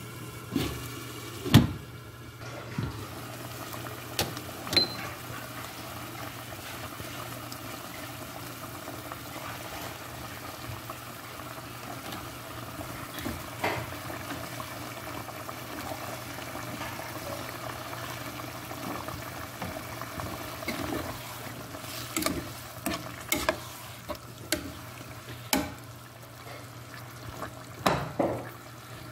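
Chicken stew simmering in a pot on a gas stove, a steady bubbling hiss. Sharp knocks and clinks of the glass lid and a ladle against the pot come over it, the loudest about a second and a half in and a run of them in the last several seconds as the stew is stirred.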